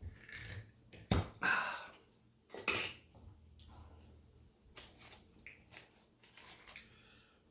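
A spoon clinking and scraping against a jar in a series of short knocks: jelly being scooped out of the jar onto crackers.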